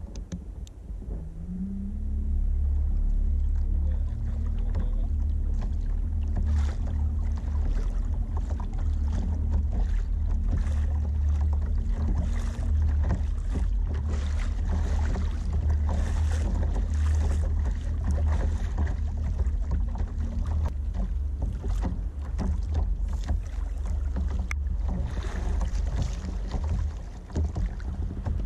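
A fishing kayak moving across the sea: water splashing and sloshing against the hull over a heavy low rumble of wind on the camera's microphone. A steady hum rises in pitch about a second and a half in and fades out after about twenty seconds.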